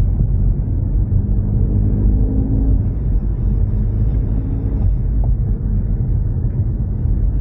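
Ford Mustang EcoBoost's turbocharged four-cylinder driving along: a steady low rumble of engine and road noise, with a faint engine drone showing up for a moment about two seconds in.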